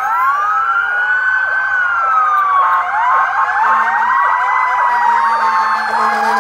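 Several police and fire-engine sirens sounding at once: a slow wail rising and falling twice over quick, repeating yelps.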